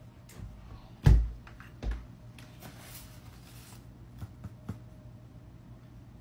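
A door shutting with a low thump about a second in, then a softer thump, followed by a few faint clicks from handling a clipboard, over a light steady room hum.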